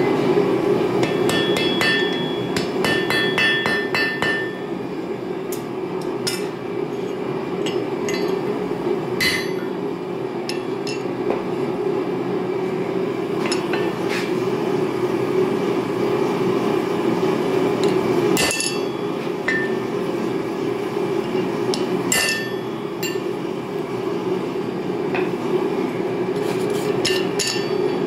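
Hand hammer striking hot railroad-spike steel on an anvil while the eye of a hammer head is punched and drifted. A quick run of ringing blows comes in the first few seconds, then scattered single strikes. A steady rushing noise runs underneath, likely the propane forge burning.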